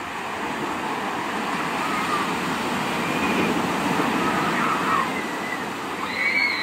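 Ocean surf breaking and washing up a sandy beach, swelling to its loudest about three to five seconds in, with faint voices of people on the beach and a child's call near the end.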